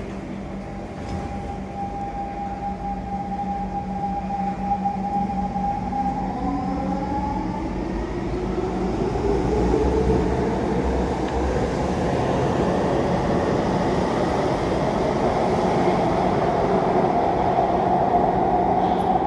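Siemens C651 metro train's GTO-VVVF traction inverters whining as it pulls away. A steady high tone comes first, then from about six seconds in several tones climb in pitch as the train gathers speed. Underneath, the rumble of wheels on rails grows louder.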